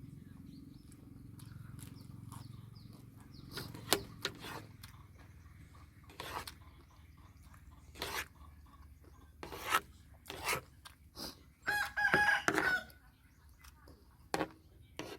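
A rooster crows once, a short call of about a second, near the end, amid scattered short clicks and taps.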